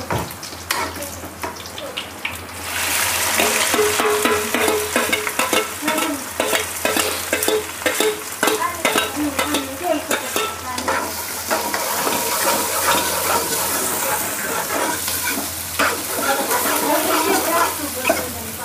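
Chopped onion and garlic paste going into hot oil in an aluminium kadhai: a loud sizzle sets in about three seconds in and keeps up. A metal ladle scrapes and clicks against the pan as the onions are stirred to fry them brown.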